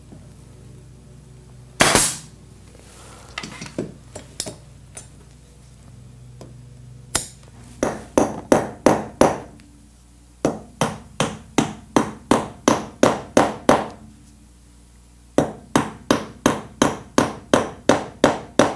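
Upholstery hammer tapping decorative nailheads into a chair's wooden frame through the leather edge, in runs of light, quick strikes at about three a second with short pauses between. About two seconds in, a handheld upholstery stapler fires once with a single loud snap.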